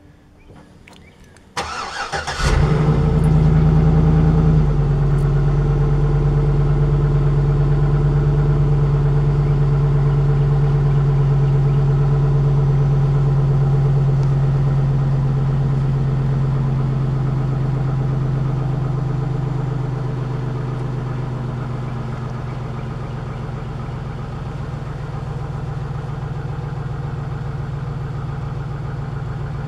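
A 2007 Chevy Avalanche's 5.3-liter V8 starting up. A brief crank about two seconds in catches into a higher idle that drops a couple of seconds later, then it idles steadily and slowly grows quieter. This is a high-mileage engine with an oil-consumption problem, blowing a cloud of smoke from the exhaust on startup.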